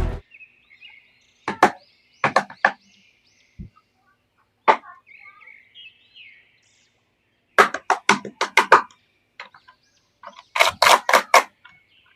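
Sharp plastic clicks and taps from action-figure toys and their packaging being handled, coming in quick clusters of three to six.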